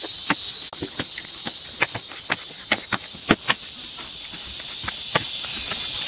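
Insects buzzing high and steady, the buzz breaking off about three seconds in and coming back near the end, over a string of sharp knocks and taps from hand work.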